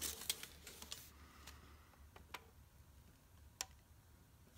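Quiet room tone with a handful of faint, scattered clicks and light taps of handling work, a sharper click about three and a half seconds in.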